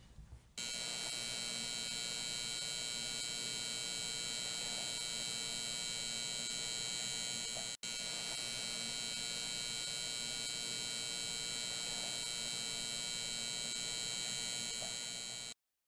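A steady electronic hum with a buzzy edge, starting about half a second in. It breaks off briefly near the middle and cuts off suddenly just before the end.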